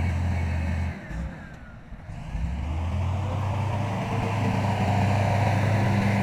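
Heavy diesel engine of earthmoving machinery running with a steady low hum. The hum drops away about a second in, then an engine comes back in and builds to a louder, steady run.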